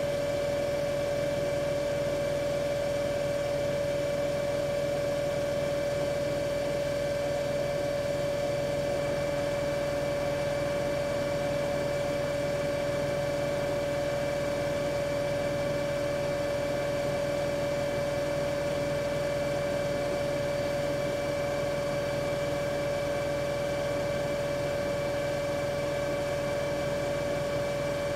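Siemens iQ500 WM12T80TR washing machine (9 kg, 1200 rpm) spinning at full speed, with a steady even whine. There is no knocking or helicopter-like rumble: a healthy machine, its shock absorbers and drum bearings sound.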